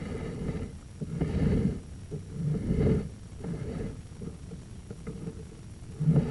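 Rumbling, scraping noise in uneven pulses about every second and a half, as a sewer inspection camera's push cable is fed down a 3-inch vent stack.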